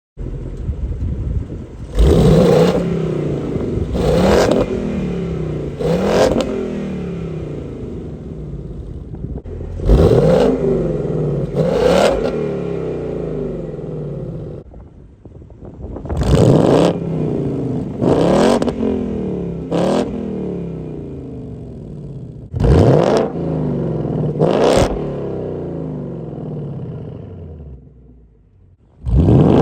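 2019 Ford Mustang GT's 5.0 L V8 exhaust, running through a Roush H-pipe with the resonators deleted, revved in place. About ten sharp throttle blips come roughly two seconds apart in groups of two or three, each dropping back to a rumbling idle.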